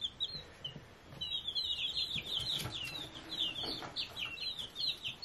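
Bantam chicks peeping: a steady stream of short, high peeps, several a second, picking up about a second in.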